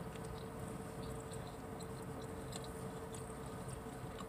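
Faint chewing and small mouth clicks of someone eating fried chicken, over a steady low hum inside a car.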